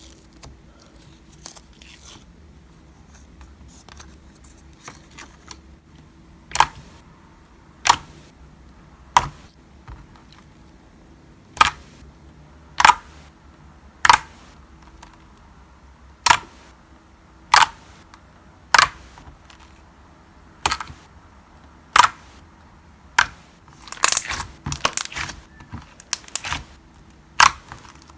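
Glossy, clicky PVA-glue slime being pressed and squeezed by hand, giving sharp single clicks about every second and a half, faint for the first few seconds, with a quick flurry of clicks near the end.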